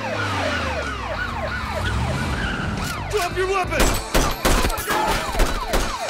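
Several police sirens wail over each other in quick up-and-down sweeps. About four seconds in, a rifle opens fire in a rapid string of shots, roughly four a second, which become the loudest sound.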